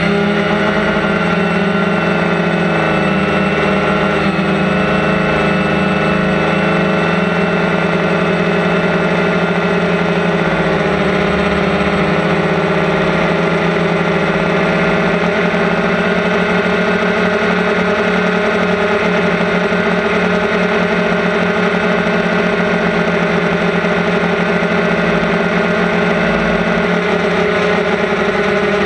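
DJI Phantom quadcopter's electric motors and propellers whining steadily, heard from the camera mounted on the drone itself. The pitch of the several tones dips and wavers slightly about ten seconds in.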